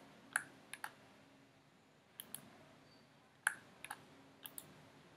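Computer mouse buttons clicking, about nine sharp clicks at irregular intervals, several in quick pairs like double-clicks.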